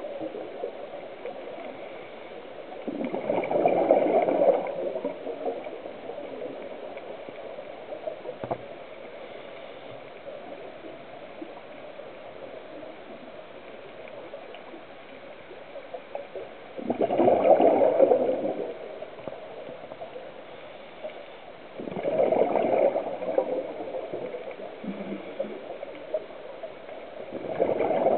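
Scuba regulator exhaust: four bubbling bursts of exhaled air, each a second or two long and unevenly spaced, over a steady underwater hiss.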